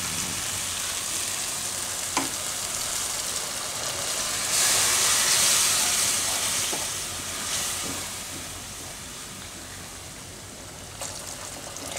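Tomato-onion masala frying in oil in a kadai, sizzling as a spatula stirs and scrapes it. About four and a half seconds in, water goes into the hot pan and the sizzle turns into a louder hiss for about two seconds, then quietens as the masala thins into gravy.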